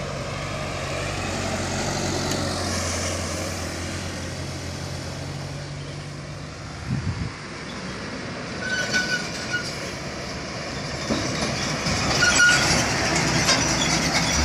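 Diesel truck engines running at a sharp bend: a steady low engine tone for the first several seconds, then a container tractor-trailer approaching and passing close, with rattling and a few short high squeals, loudest near the end.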